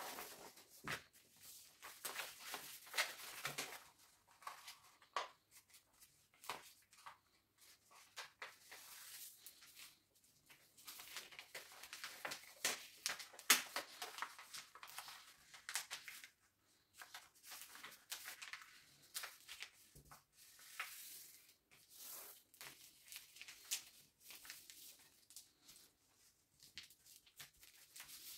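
Large sheets of paper being folded by hand into a paper airplane: rustling and crinkling in repeated bursts with short sharp scrapes as the folds are pressed, separated by brief quiet gaps.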